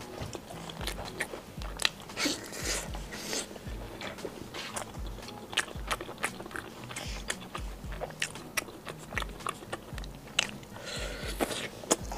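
Close-up chewing and wet lip smacks of someone eating charcoal-grilled chicken thigh meat off a skewer, many small clicks throughout. A soft background music beat runs underneath.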